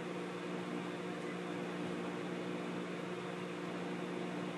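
Steady background hum with an even hiss behind it, and no speech.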